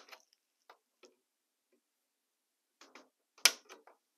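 Flush-cut rail nippers working on the code 80 rail of model-railway flex track: a few faint clicks, then one sharp snip about three and a half seconds in.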